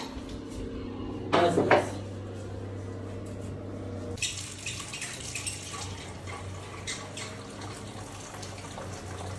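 Water running from a wall tap through a hose, an even hiss that starts about four seconds in and holds steady, over a low hum. A short clatter sounds about a second and a half in.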